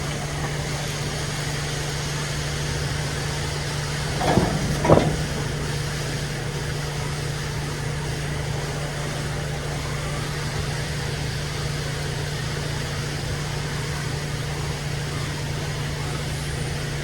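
Dairy milking system running its after-milking rinse and wash cycle: a steady mechanical hum with a constant low tone. Two short, louder sounds come about four and five seconds in.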